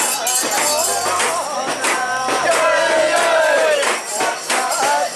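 A crowd of mikoshi bearers chanting and shouting together, over a rhythmic metallic jingling and clinking from the swaying portable shrine.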